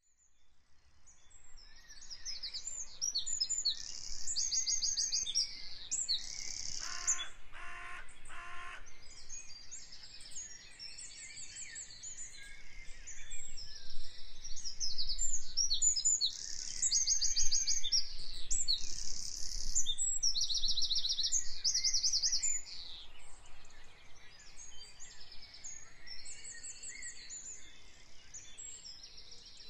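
Many songbirds chirping and trilling in a dense chorus of short, high calls, fading in over the first couple of seconds. Three lower calls come about seven seconds in.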